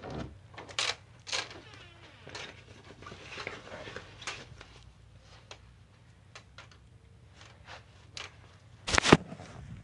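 Handling noises: scattered light clicks and knocks with some rustling, and a sharper, louder knock about nine seconds in.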